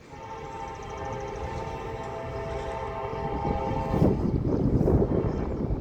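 CSX freight locomotive's horn sounding one long chord for about four seconds, then cutting off. After it stops, the rumble of the train running past grows louder.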